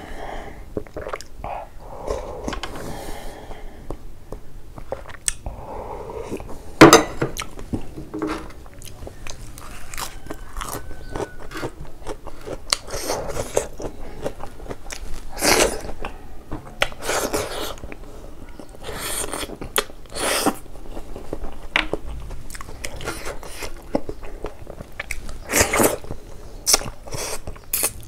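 A person chewing pork trotter pieces with wet smacking and crunching at irregular intervals. The loudest smack comes about seven seconds in.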